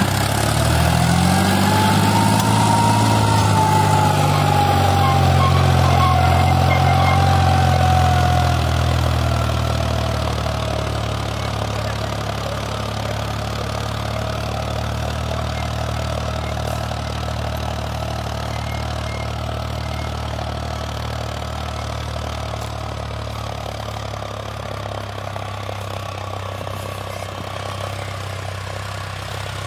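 John Deere 5036 D tractor's three-cylinder diesel engine working under load, pulling a disc harrow through tilled soil. The engine note rises over the first couple of seconds, then runs steadily and turns fainter after about eight seconds as the tractor moves away.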